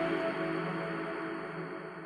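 Background music: a held chord slowly fading away.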